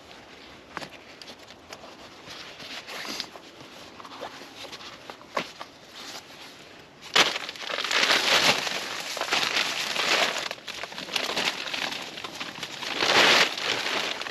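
Crinkling and rustling as an accordion-folding closed-cell foam sleeping pad is handled and laid out on a plastic groundsheet over dry leaves. Light scattered clicks come first, and the rustling gets much louder from about halfway through.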